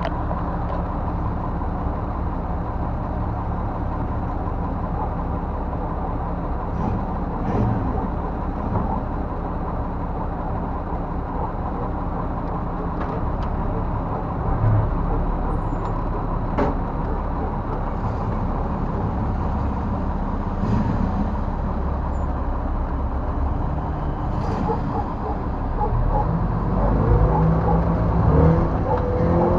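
A 5-ton 6x6 military truck's diesel engine (1991 BMY M925A2), heard from inside the cab, runs steadily at a low idle. About 26 seconds in it picks up and gets louder as the truck takes up the tow strap and pulls a stuck pickup out of the mud. The pull is easy, with barely any throttle.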